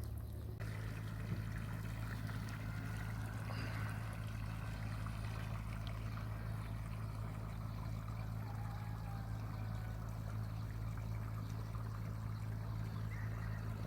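Running water pouring and trickling steadily, over a steady low hum.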